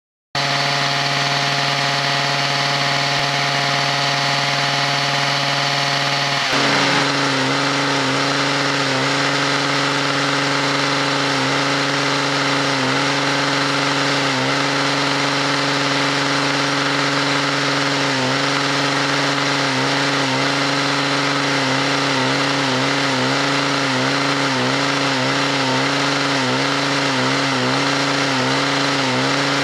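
Chainsaw-powered winch with a 111 cc, 6.5 HP power head, running steadily. About six seconds in its pitch drops, and from then on the note sags briefly every second or two, more often near the end, as the winch drags a log.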